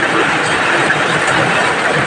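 Heavy rain falling steadily, a loud, even hiss with no let-up.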